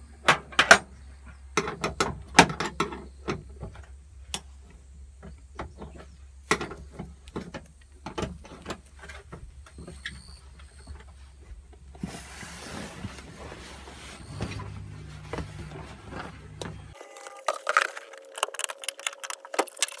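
Light knocks and clicks of hands working at a bolted inspection lid in a kei truck's steel bed floor, the loudest near the start, with a short rustle midway. A steady low hum runs underneath and cuts off near the end.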